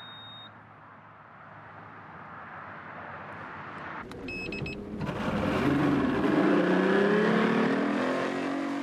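Mercury outboard motor running, its pitch climbing steadily as it revs up and the boat gathers speed, over a loud hiss of wind and spray. It comes in about four seconds in and grows loudest near the end.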